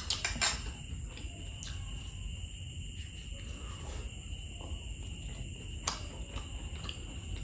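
Mouth and chewing sounds of someone eating grilled chicken intestine (isaw) off a bamboo skewer: a few sharp clicks right at the start and one about six seconds in, with faint smacking between, over a steady high-pitched drone.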